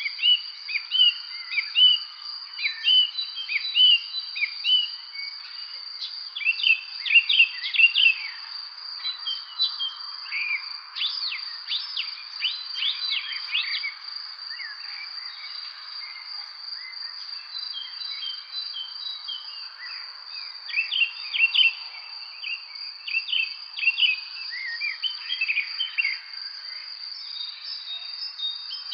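Songbirds chirping in bursts of short, quick rising and falling notes, busiest about six to eight seconds in, around twelve to fourteen seconds in, and from about twenty seconds on. Underneath runs a continuous high-pitched trill and a soft background hiss.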